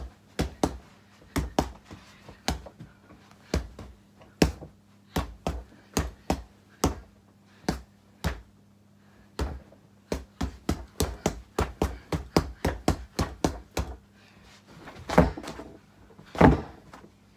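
Bare fists punching a punch bag: a series of irregular thuds that quickens into a flurry of about three or four hits a second in the middle, with two louder, longer impacts near the end.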